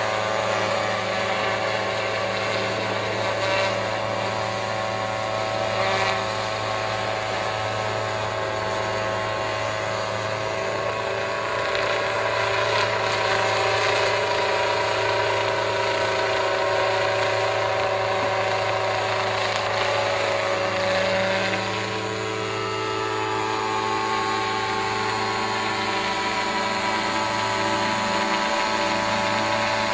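Small unmanned crop-spraying helicopter, its engine and rotor running steadily while it flies low. About twenty seconds in, the pitch bends and the sound drops briefly.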